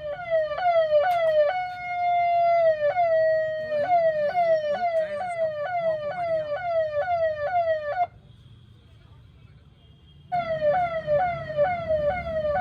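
Newly installed electronic police-style siren (hooter) sounding a rapid series of falling yelps, about two to three a second, with one long, slowly falling tone about two seconds in. It cuts off suddenly about eight seconds in and starts yelping again about two seconds later.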